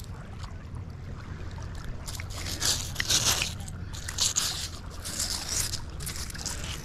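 Fingers scraping and crumbling the crust off an encrusted find stuck to a fishing magnet, in irregular crackling scrapes from about two seconds in, over a steady low rumble.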